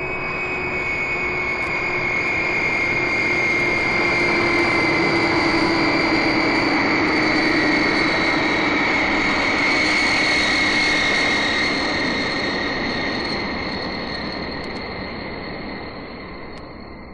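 Vickers Viscount turboprop airliner coming in to land, its Rolls-Royce Dart engines giving a high, steady whine over a rushing noise. The sound swells to a peak mid-way and then fades as the aircraft passes, its whine sliding slightly down in pitch.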